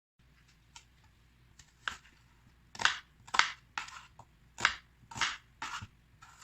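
A series of about ten short, irregularly spaced crunching sounds, some sharp and some drawn out, growing louder after the first two seconds.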